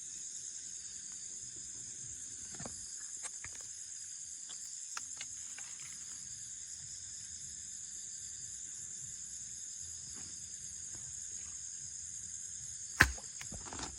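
Steady high-pitched chorus of night insects, with a few faint clicks and rustles and one sharp, loud knock near the end.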